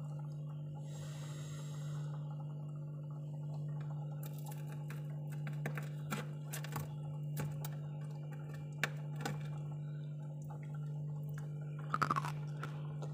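Fingers scratching and crunching the frost on a freezer's inner walls: scattered crisp crackles and scrapes, with a louder cluster near the end, over a steady low hum.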